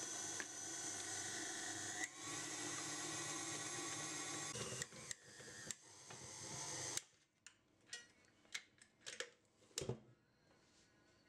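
KitchenAid Classic stand mixer's motor running steadily with a whine, its dough hook kneading a stiff whole-wheat bread dough, then switched off and stopping abruptly about seven seconds in. Several clicks and knocks follow as the mixer head is unlocked and tilted up.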